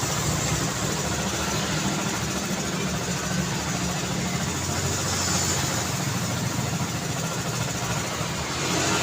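Street traffic: a steady mix of car engines and tyre noise, with no single vehicle standing out.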